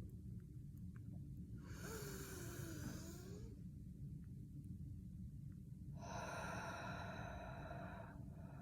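Two long, deep breaths through the mouth, one about two seconds in and a louder one about six seconds in, each lasting about two seconds, over a faint steady low hum.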